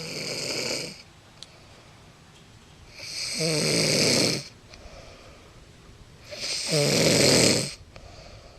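A woman snoring in her sleep: three long snores about three seconds apart, each a buzzing, rattling inhale lasting a second or more, the first ending about a second in.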